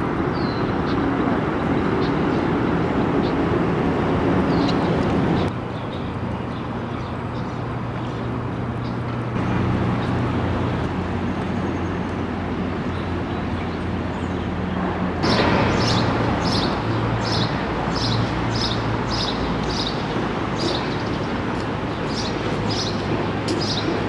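City street ambience: a steady low hum of traffic and building machinery. In the second half a small bird chirps repeatedly, about one and a half short high chirps a second.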